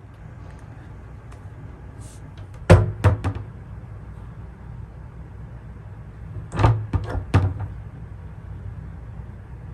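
Cat door flap swinging and clacking against its frame: a quick run of three clacks, then about four seconds later another run of three or four.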